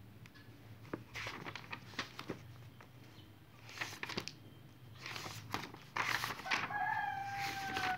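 Pages of a paperback textbook being turned and handled, rustling with soft clicks of paper, busier in the second half. Near the end a drawn-out pitched call, steady and then falling, sounds over the rustling.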